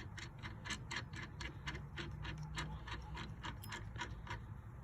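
Ratchet wrench clicking quickly and evenly, about four to five clicks a second, as the steering hub's retaining nut is run down onto the shaft; the clicking stops near the end.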